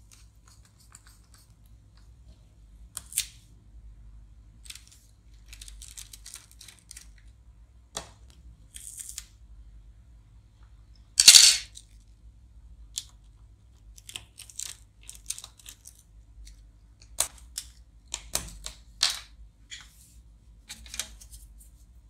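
Small screwdriver and tiny screws clicking and scraping on a laptop's metal bottom cover as the cover screws are taken out, with scattered short clicks throughout and one louder rasping scrape about eleven seconds in.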